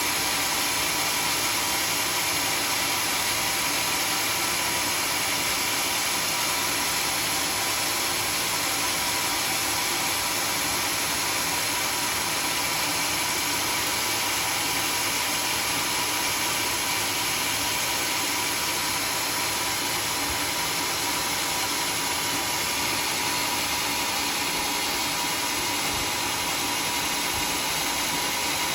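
Sawmill machinery running steadily: a constant mechanical hiss and hum with a few faint steady tones, unchanging throughout.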